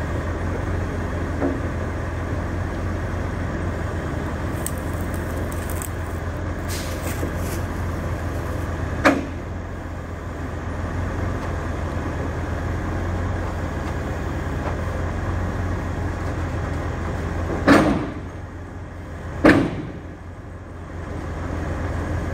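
A heavy truck engine running steadily during a winch recovery, with three sharp metallic bangs, one about nine seconds in and two close together near the end: the recovery chains slipping on the semi's bumper, probably at the back.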